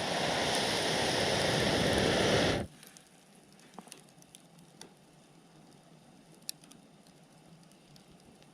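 A loud rushing hiss for the first two and a half seconds or so, cutting off abruptly, then a wood campfire burning quietly with a few sharp crackles and pops.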